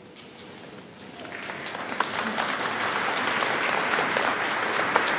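Audience applause, starting faintly and swelling from about a second in into steady clapping by many hands.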